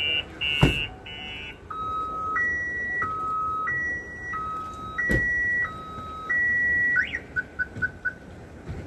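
Vehicle electronic siren cycling through its tones: fast buzzy beeps, then a steady two-tone high-low alternation, then near the end a quick rising chirp and a rapid run of short pips. Two sharp knocks come through about half a second in and again around five seconds.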